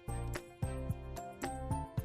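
Background music with a steady beat: plucked or chiming notes over a bass line, with sharp percussion hits about every half second.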